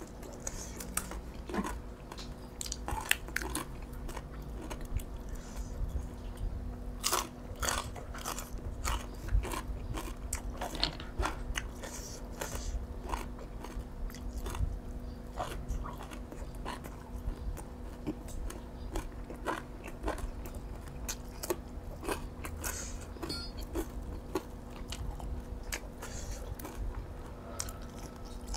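Close-miked eating: irregular crunching bites and chewing of crispy pork rinds and raw vegetables, with a faint steady hum underneath.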